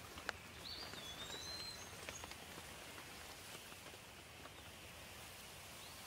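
Light rain falling steadily, with scattered individual drops ticking on leaves. A bird whistles a short gliding call about a second in, followed by a few higher chirps.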